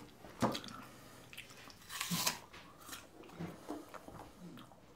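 A person biting into crunchy food and chewing. The loudest crunch comes about two seconds in, followed by a few quieter chewing crunches.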